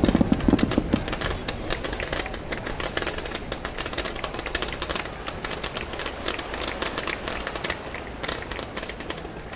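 A deep firework boom dies away in the first second, then a dense crackle of many quick pops from burning firework stars, thinning out and fading away.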